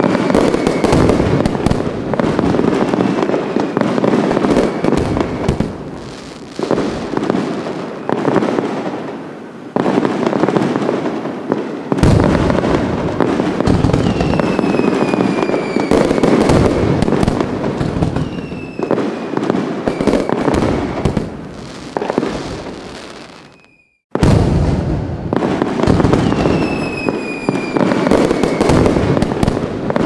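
Fireworks display: dense crackling and bangs with a deep boom about twelve seconds in and several whistles that fall in pitch. Near three-quarters of the way through, the sound fades out to a brief silence and then starts again abruptly.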